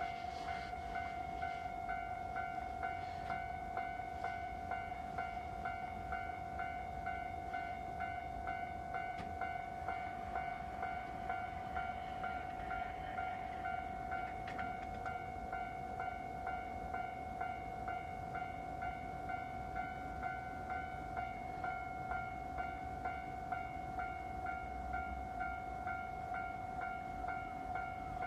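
Railway level-crossing warning bell ringing: a steady, evenly repeated ding-ding that holds the same pitch and pace throughout.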